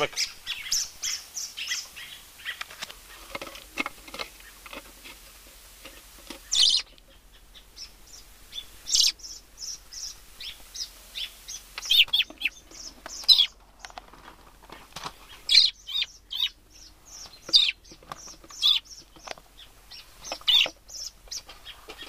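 Small bird chirping in short, high calls: a quick run of chirps at first, then louder single chirps every second or two.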